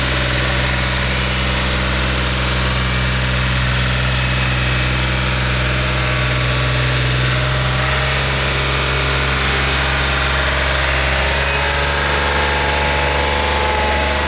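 Engine of a small hydraulic-drive dump truck running at a steady, unchanging pitch as it climbs a steep slope, the engine held at constant speed while the hydraulic drive does the work. The low hum shifts slightly about two-thirds of the way through.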